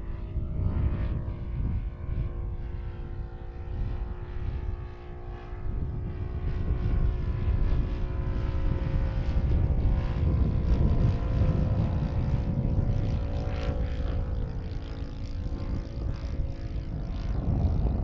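Motor and propeller of a radio-controlled Seagull Junkers Ju 87 Stuka scale model in flight, running at a steady pitch. Wind buffets the microphone throughout and grows stronger near the end as the engine tone fades into it.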